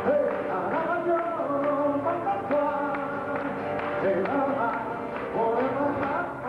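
Live acoustic guitar music with a man singing a melody over it.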